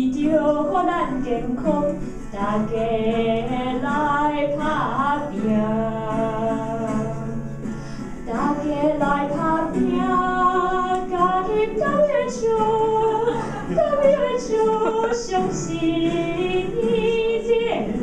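A woman singing a short song into a handheld microphone, with a guitar accompanying her.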